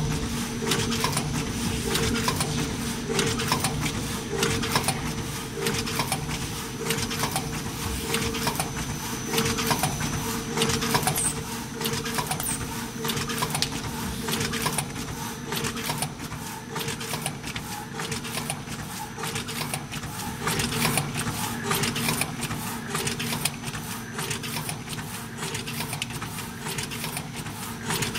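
Acepack S-180 spice sachet packing machine running: a steady motor hum under rapid, continuous mechanical clicking.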